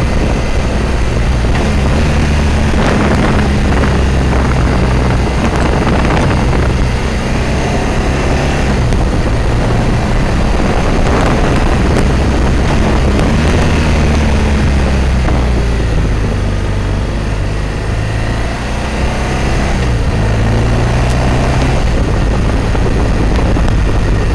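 Motorcycle engine running while riding, its note rising and falling several times with speed and gear changes, under a steady rush of wind on the microphone.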